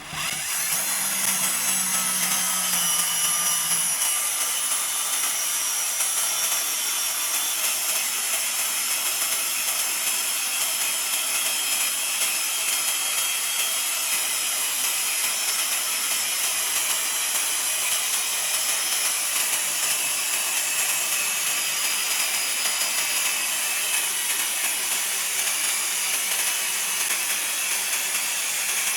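A power tool working steadily against metal, grinding or sanding away at it with a continuous hiss-like noise that starts abruptly.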